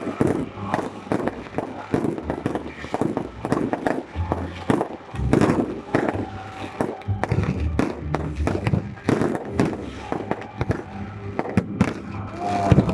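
Fireworks display: a rapid, irregular series of bangs and crackles from shells bursting overhead.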